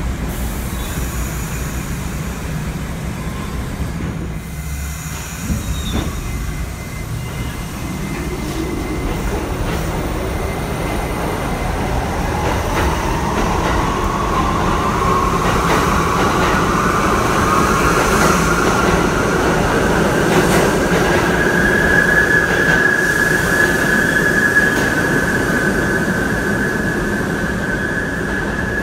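R68 subway train accelerating out of a station. Under a low rumble of wheels on rail, its traction motors whine, climbing steadily in pitch for about fifteen seconds, then levelling off into a steady high whine as it runs into the tunnel.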